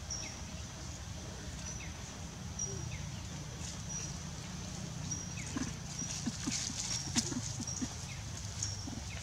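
Short, high, flat-pitched chirps repeating about once a second over a low steady rumble, with a cluster of soft rustles and scuffs in dry leaf litter from about halfway through as the macaques shift about on the ground.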